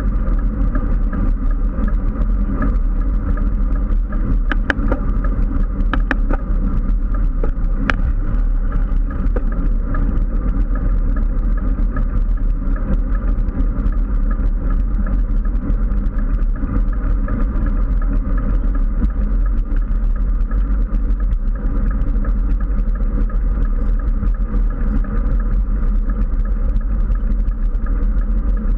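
Steady, loud wind rushing over the microphone of a handlebar-mounted action camera on a road bike moving at speed, mixed with road noise from the tyres on asphalt. A few faint clicks come about five to eight seconds in.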